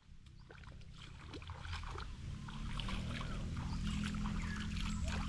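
Riverside ambience fading in after a moment of silence: flowing river water with scattered high chirps and ticks.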